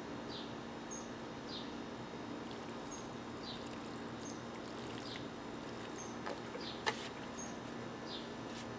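Water pouring from a watering can onto the soil of a potted plant, a steady splashing hiss, while a bird chirps repeatedly with short downward chirps about once a second. A few sharp clicks come near the end.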